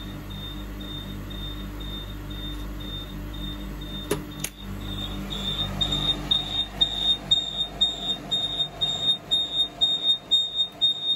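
Piezoelectric alarm speaker, an HPZ piezoceramic disc bonded to a metal plate and working at 300 °C inside a lab oven, beeping a high-pitched alarm tone about three beeps a second. The beeps are muffled at first, then become much louder after two clicks about four seconds in as the oven door is opened. A steady low hum runs underneath.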